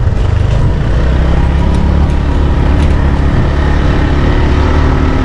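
Motorcycle engine running at a steady pace while being ridden along a rough dirt track, a loud, even low rumble.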